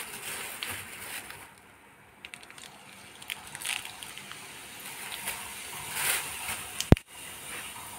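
Hot mustard oil crackling in a kadhai as dried red chillies and cumin seeds fry for a tadka, with scattered small pops. A single sharp click comes about seven seconds in.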